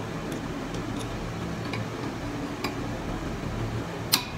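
Scattered small clicks and ticks of hands fitting parts onto a metal scissor-arm microphone stand, with one sharper click about four seconds in, over a steady low hum.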